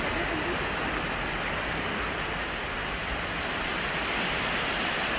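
Steady rushing noise of small waves breaking on a sandy beach, mixed with wind on the microphone.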